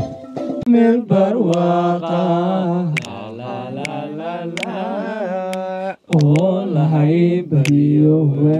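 A woman singing a slow melody unaccompanied, holding long wavering notes, with a short breath break about six seconds in. A few sharp clicks sound over the singing.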